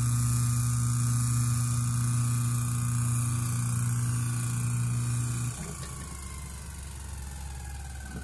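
Century quarter-horsepower 1750 RPM repulsion-start induction-run electric motor running with a steady, smooth hum. About five and a half seconds in the hum cuts off as the power is removed, and the motor coasts down with a fainter whine that slowly falls in pitch.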